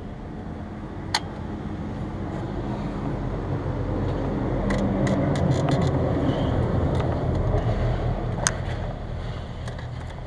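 A car engine's low hum, swelling toward the middle and easing off near the end, with a few sharp metallic clicks: one about a second in, several in the middle and one near the end.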